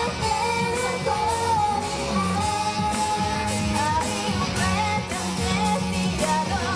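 Female vocal group singing a dance-pop song into microphones, with a single melody line over backing music that has a steady beat and a sustained bass.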